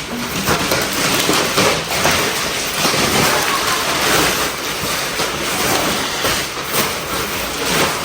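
Packaging of a new chest freezer rustling and crinkling close by as it is unwrapped, a dense, irregular crackle.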